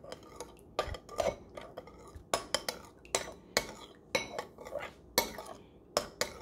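Metal spoon stirring a thin soy-sauce glaze in a bowl, clinking against the bowl's sides in irregular sharp taps, about two a second.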